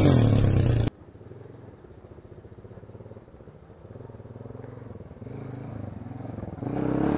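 Motorcycle engine revving hard for about the first second, then cutting off abruptly. After that a motorcycle engine runs faintly at a distance, rising in pitch now and then, and grows louder near the end.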